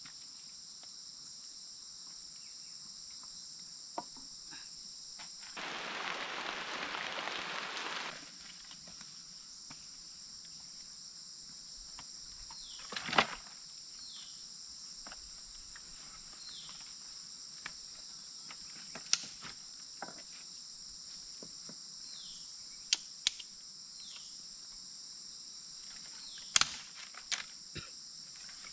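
Steady high-pitched drone of forest insects. A couple of seconds of rustling come about six seconds in, and several sharp knocks and snaps of sticks being handled are scattered through the second half.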